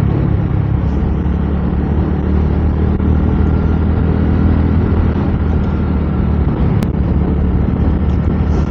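A motor vehicle's engine running at a steady speed, a low hum with road noise over it. One sharp click near the end.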